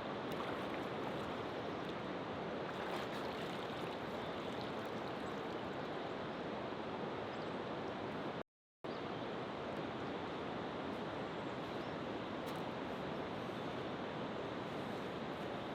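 River water rushing steadily, with a brief cut to silence a little past halfway.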